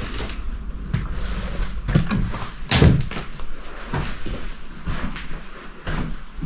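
Footsteps on an old wooden floor, about one knock a second, with a louder thud a little before three seconds in.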